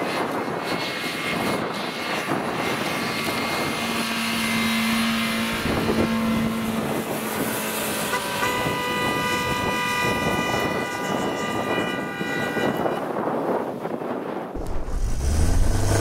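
SUV engine working hard at high revs as it climbs through deep snow, over a constant noisy hiss; for a few seconds in the middle it holds a steady high-pitched whine.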